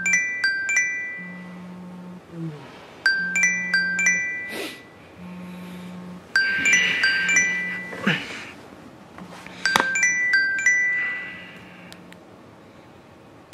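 An iPhone ringing with an incoming call: a short phrase of bright chime notes repeats about every three seconds while the phone's vibration buzzes underneath in short, evenly spaced pulses. The ringing stops after about ten seconds, the buzzing shortly after.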